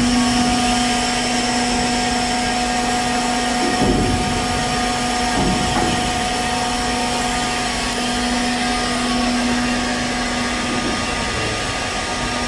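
Cargo ship's hatch-cover machinery running with a steady hum, a constant low drone with a fainter higher tone over a wash of noise, as the hatch covers open by themselves. There are a couple of dull bumps about four and five and a half seconds in, and the low drone weakens near the end.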